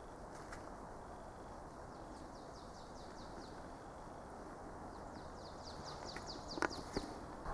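Small birds calling: runs of short, high, falling chirps, busier toward the end, over a steady low background noise. Two sharp clicks near the end are the loudest thing.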